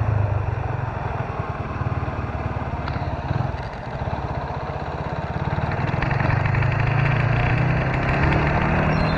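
Motorcycle engine running on the move. Its note drops as it eases off a few seconds in, then rises again as it picks up speed after about six seconds.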